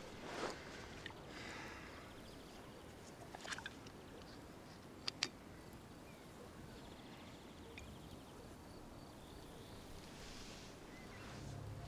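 Faint quiet ambience with soft rustling and a few small clicks, the sharpest a pair of metal clicks about five seconds in as an army canteen is handled and its screw cap opened.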